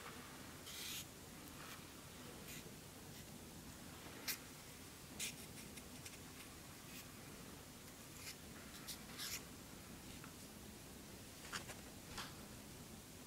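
Faint room tone with scattered short scratchy clicks and rustles, about a dozen of them, the sharpest about four seconds in.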